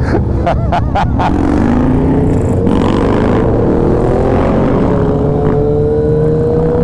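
Suzuki Hayabusa's inline-four engine through an aftermarket Brocks Performance exhaust, accelerating with a rising pitch for a few seconds. The pitch dips briefly about four and a half seconds in, then the engine settles into a steady pull. Wind rumble runs underneath.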